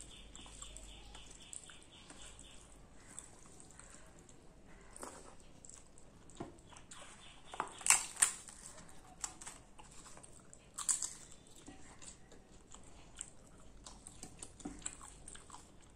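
Close-miked eating by hand: fingers mixing rice on a steel plate and chewing, with small clicks throughout. A few sharp crunches near the middle, the loudest a pair about eight seconds in and another about three seconds later, as the papad is broken.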